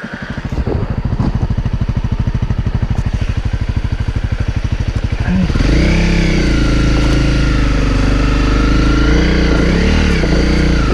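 Honda CRF250L's single-cylinder four-stroke engine being restarted after a stall: the electric starter cranks it in an even, rapid pulse for about five seconds, then the engine catches and runs, the revs rising and falling a little.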